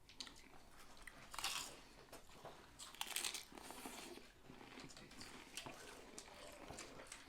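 Close-up eating sounds: crisp crunching bites of kettle-cooked potato chips and chewing, with the loudest crunches about one and a half and three seconds in.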